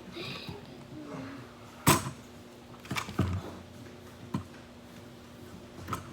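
Toy packaging being handled: a few sharp clicks and knocks, the loudest about two seconds in.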